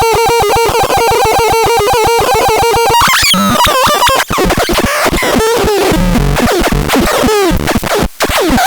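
Synthesizer sounding: for about three seconds a steady tone chopped into rapid pulses, then a chaotic jumble of rising and falling pitch sweeps.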